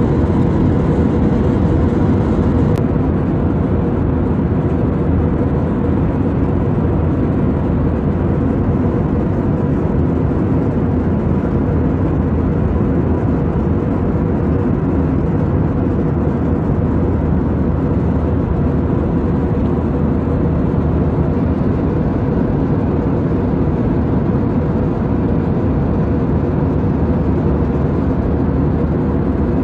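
Steady cabin noise of a jet airliner in cruise: a low, even rushing drone of engines and airflow, with a faint steady hum in it.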